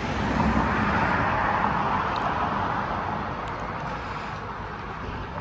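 A car going by on the road: a steady tyre-and-engine rush, loudest about a second in, then slowly fading away.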